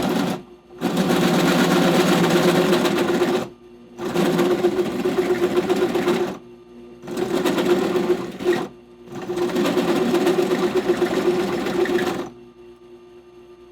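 Drill spinning a bi-metal hole saw into the side of a steel pipe to notch it, an interrupted cut, run in five bursts of a few seconds each with short pauses between. The bursts stop about 12 seconds in, leaving a fan humming steadily.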